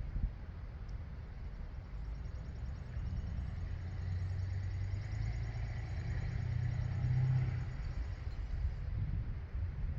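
A motor vehicle driving past, its engine and tyre noise swelling to a peak about seven seconds in and then fading, over a steady low rumble of wind on the microphone.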